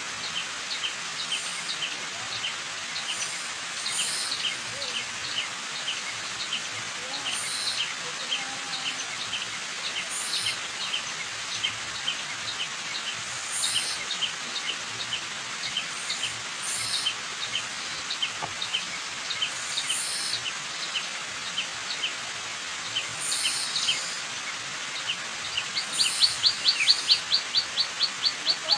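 Waterfall rushing steadily, with birds chirping over it: a quick train of high chirps, a louder call about every three seconds, and a fast loud run of chirps near the end.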